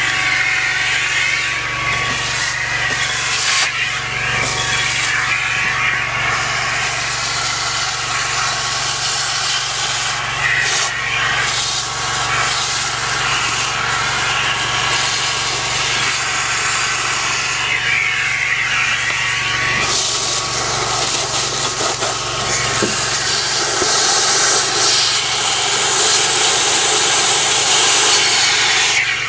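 Industrial gutter vacuum running steadily and drawing air through its corrugated hose. The rush of air at the nozzle swells and eases a few times as the nozzle is worked into gaps.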